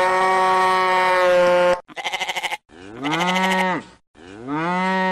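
Farm animal calls. A long steady moo-like call is followed by a short quavering bleat, then two shorter moos that rise and fall. Each is cut off abruptly, like separate clips joined together.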